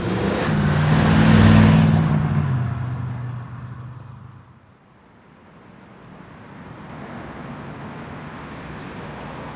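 A car passes close by, its engine and tyre noise swelling to a peak within the first two seconds and fading away by about four seconds in. A low, steady traffic hum follows.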